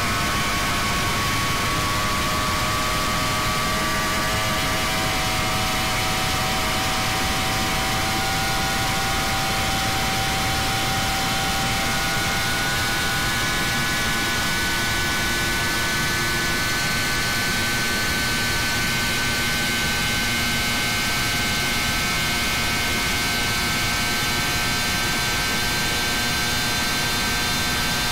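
High-performance catamaran powerboat's engines running flat out: a loud, steady drone with whining tones that climb slowly as the boat accelerates from about 88 to 110 mph, over a constant rush of wind and water.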